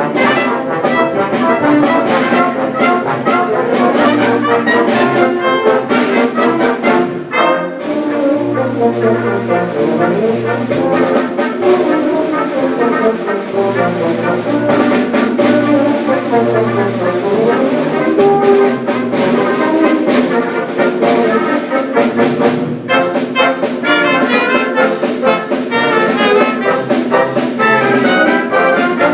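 Brass band playing, trumpets and trombones together over low bass notes, with drum strokes that thin out through the middle and return near the end.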